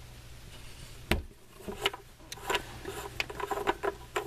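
Oil filler cap being twisted and unscrewed by hand from the engine's valve cover: a series of irregular clicks and light knocks, the loudest about a second in.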